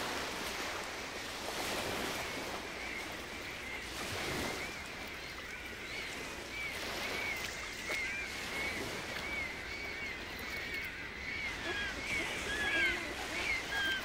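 Sea surf and splashing water, with a run of short, high, rising-and-falling bird calls that start a few seconds in and come thicker near the end.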